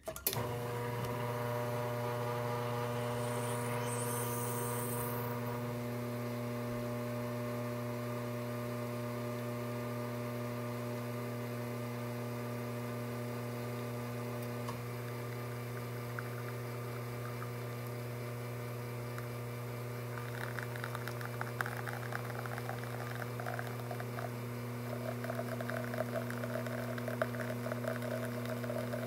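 Rocket espresso machine's pump humming steadily while a shot is pulled through a bottomless portafilter, starting suddenly at the beginning. From about twenty seconds in, a light crackling spatter joins it as the espresso streams out of the basket.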